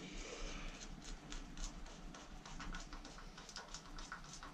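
Hand screwdriver driving a screw through a small plastic clip into steel, making faint, irregular clicks and ticks, several a second.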